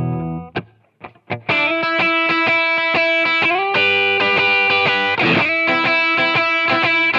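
Strat-type electric guitar on its DiMarzio DP408 Virtual Vintage 54 Pro middle pickup, played through an amp with drive and effects: a riff of ringing chords. It starts about a second and a half in, after the previous sample fades out and a few faint clicks.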